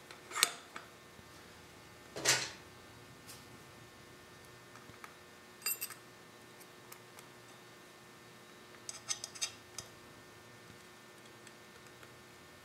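Metal clinks and light scraping as a wheel-balancing stand's centering cone is fitted onto its axle at the wheel hub and its set screw tightened. There is a loud clink about two seconds in, a short cluster near six seconds and a run of several clinks around nine to ten seconds.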